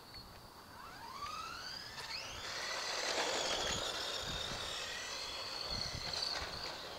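Radio-controlled car's motor whining up in pitch as it speeds up. It comes close about three seconds in, with a rush of tyre noise on rough asphalt, then goes on whining at high pitch as it drives away.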